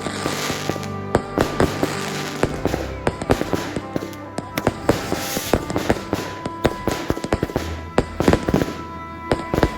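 Fireworks going off in quick succession: many sharp bangs and crackles, with music playing underneath.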